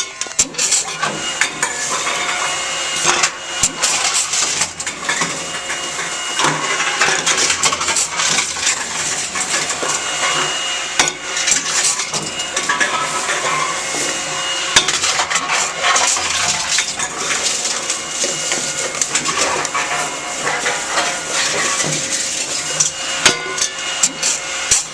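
Empty drink cans clattering and clanking as they are fed into a Tomra T-53 reverse vending machine, with many sharp knocks over a steady machine hum.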